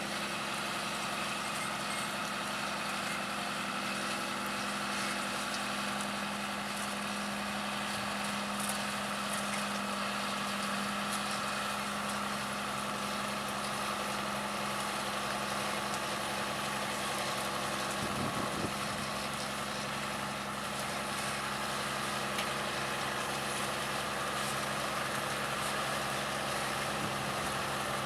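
John Deere 7210R tractor's engine running steadily as it pulls a Grimme SE 170-60 twin-row potato harvester, with the harvester's machinery noise over it.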